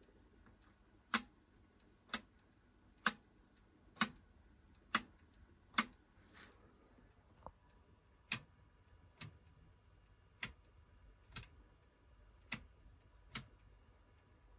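A series of sharp clicks, about one a second. The first six are louder and evenly spaced; the later ones are fainter and less even.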